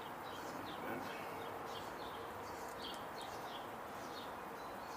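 Small birds chirping in short, quick notes, several a second, over a steady background hiss.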